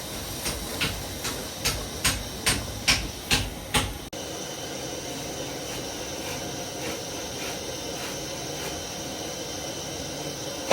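A run of evenly spaced knocks, about two a second, for the first four seconds. It cuts off suddenly and gives way to the steady sizzle of a sauce of onions and crayfish frying in oil.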